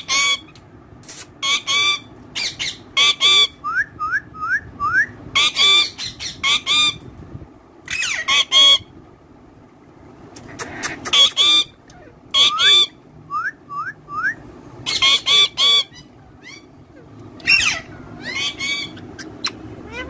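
Rose-ringed (Indian ringneck) parakeet calling: a string of short, loud, sharp squawks, with runs of brief rising chirps between them and a pause about halfway.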